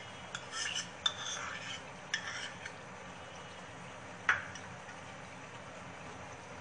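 Wooden spatula scraping yogurt out of a plastic tub and working it in a nonstick pan: a few short scrapes and clicks, then one sharp knock about four seconds in. Under it the chicken korma masala sizzles faintly and steadily.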